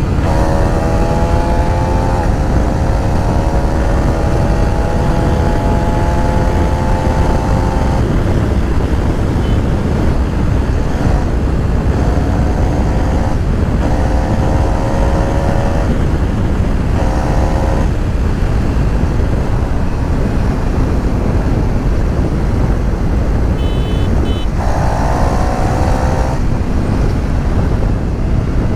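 KTM Duke 390's single-cylinder engine riding along, its pitch rising steadily for the first eight seconds or so, then several short rises as the throttle is opened in brief bursts, over a steady low rumble.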